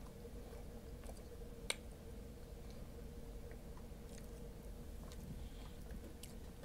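Faint close-up chewing of a queso-dipped seasoned fry: soft wet mouth smacks and clicks, with one sharper click about two seconds in.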